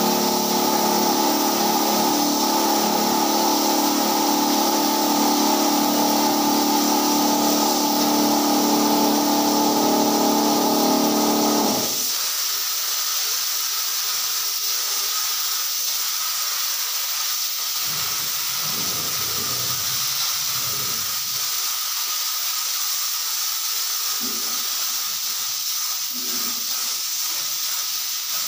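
Compressed-air spray gun spraying PU wood polish: a steady, loud hiss of air and atomised finish. A lower steady hum runs under it and cuts off suddenly about twelve seconds in, leaving the hiss alone.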